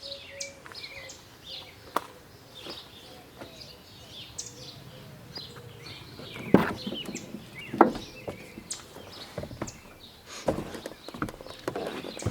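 Birds chirping, with a few sharp knocks and clicks from about six and a half seconds on.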